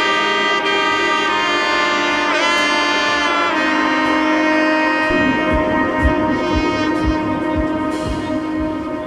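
Background music with sustained brass-like tones, a few pitch swoops in the first three seconds, and a regular beat entering about five seconds in.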